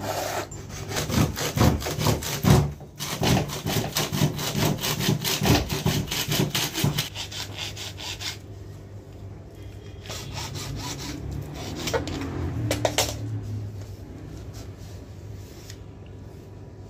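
A hacksaw blade is worked by hand in quick back-and-forth strokes, cutting a WPC L-beading strip to length. The sawing is steady and loud for about the first seven seconds, then goes on in fainter, sparser strokes.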